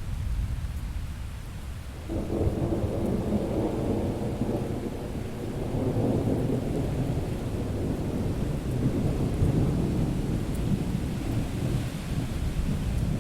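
Thunderstorm: thunder rumbling low over steady rain, with a louder roll of thunder breaking in about two seconds in and rolling on.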